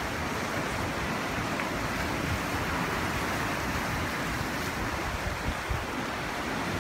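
Ocean surf washing and breaking against black lava-rock sea stacks, a steady rushing, with low wind buffets on the microphone now and then near the end.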